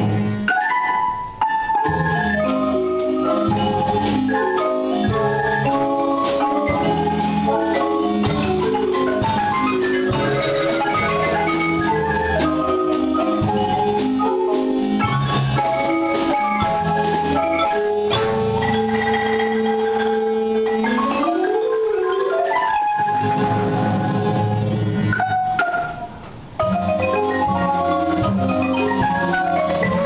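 A Guatemalan marimba ensemble plays a lively piece: several players at one large marimba make dense runs of quick mallet notes over upright bass and drum kit. The playing breaks off briefly a few seconds before the end.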